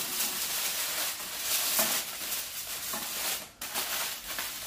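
Aluminium foil crinkling and rustling as it is folded and pressed tight around a cooked roast, with a brief lull about three and a half seconds in.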